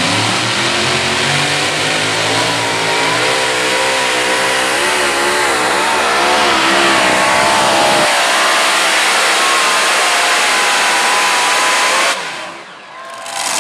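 Modified pulling tractor with three supercharged engines running at full throttle as it hauls the sled down the track, the engine pitch wavering up and down. The sound drops away sharply about twelve seconds in as the engines are shut off at the end of the pull.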